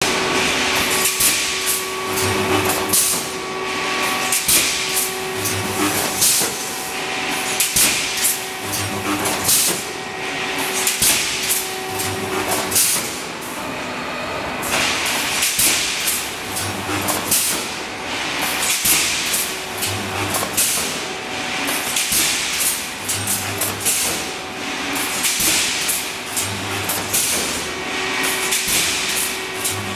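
Pneumatic wire mesh welding machine cycling through welds: repeated clanks and hissing air, with a short low electrical hum at each weld about every three seconds.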